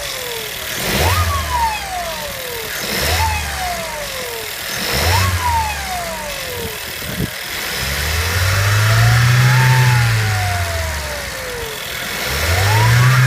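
1.4 TSI petrol engine revved in three quick blips about two seconds apart, then a slower, longer rev, with another starting near the end. Each rev brings a whistle that climbs with the revs and slides down in pitch as they drop. This whistle is the fault the engine is being revved to show.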